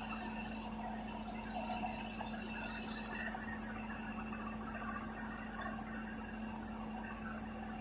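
Bulldozer's diesel engine running steadily with an even hum. About three seconds in, a steady high-pitched hiss joins it.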